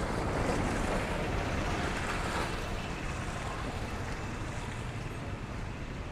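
Steady rushing outdoor noise, like wind on the microphone, a little louder in the first couple of seconds and then even.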